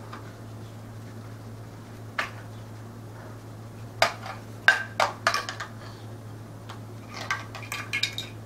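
Plastic Duplo bricks clicking and knocking together as a toddler handles them: one click about two seconds in, a quick run of knocks about halfway through, and more clatter near the end.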